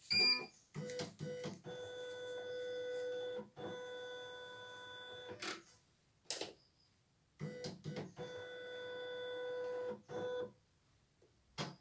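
CNY E900 embroidery machine's embroidery unit driving the hoop: two runs of a steady stepper-motor whine, each a few seconds long, with a beep near the start and several short clicks between the runs.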